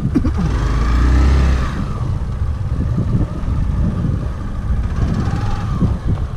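Hero Xpulse 200 motorcycle's single-cylinder engine running at a standstill, with a brief rev that rises and falls about a second in.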